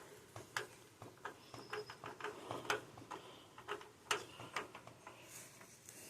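Scattered light clicks and taps, irregular and a dozen or more, as a part is worked off a car by hand to free a trapped bird.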